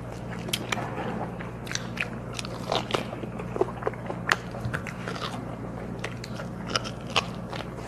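Close-up biting and chewing of braised pig's trotter gnawed off the bone: a run of irregular small smacks, clicks and crunches. A low steady hum runs underneath.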